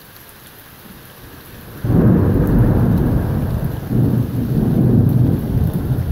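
Steady summer rain falling, then about two seconds in a loud thunderclap breaks out and rumbles on, swelling again a couple of seconds later.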